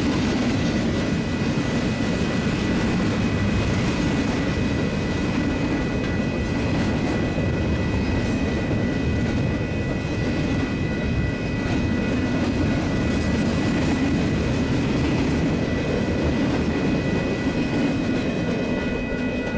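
Union Pacific double-stack intermodal freight train rolling past at close range: a steady rumble and rattle of container well cars and wheels on the rails, with a steady high ringing tone over it.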